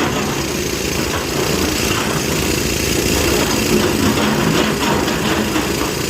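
Diesel engine of heavy earthmoving machinery running steadily under load, a loud continuous rumble.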